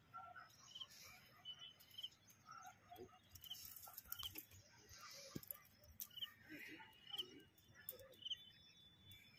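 Faint outdoor quiet with a bird repeating a short high chirp every second or so, and a few faint clicks.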